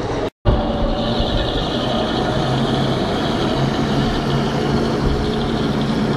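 LAZ-699R coach's ZIL V8 petrol engine running steadily as the bus pulls away slowly and drives past. The sound cuts out for a split second just after the start.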